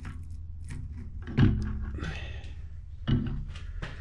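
Two heavy metal thunks, about a second and a half apart, as a lathe's fixed steady is worked loose and lifted off the lathe bed, each knock ringing briefly, over a low steady hum.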